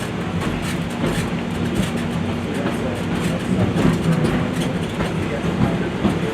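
Wildlife Express park train running on its track, heard from a passenger car: a steady low rumble and hum with scattered wheel clicks on the rails.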